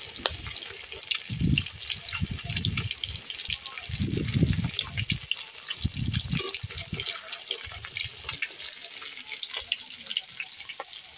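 Fish pieces sizzling and crackling as they fry in hot oil in a metal kadai, a dense run of fine spitting ticks. Irregular dull low thuds sound through the first two-thirds.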